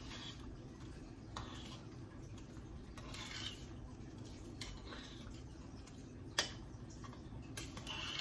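A metal spoon stirring soup in a metal saucepan, clinking against the side of the pot several times, with one louder clink about six seconds in.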